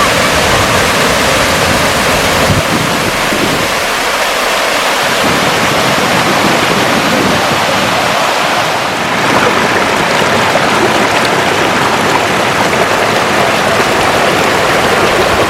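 Waterfall's water falling into a small pond, a loud, steady rush of water with no break.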